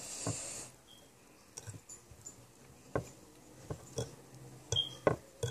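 Scattered light clicks and taps, with a short rustle at the start: a kitchen knife and a frosting tub being handled on a counter.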